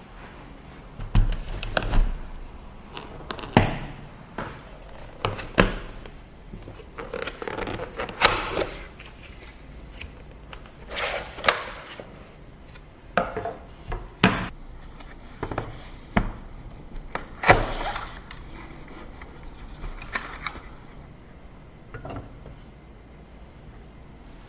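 Computer parts being handled and fitted during a PC assembly: irregular clicks, taps and knocks of plastic and metal, with a few short scraping sounds, thinning out near the end.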